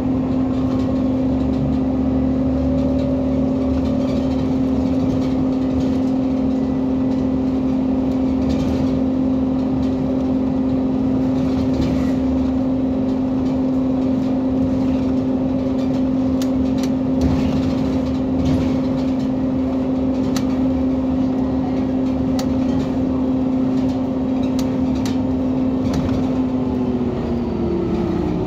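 Irisbus Citelis 18 articulated bus with an Iveco Cursor 8 natural-gas (CNG) engine running steadily, its hum holding one pitch. The hum shifts in pitch near the end.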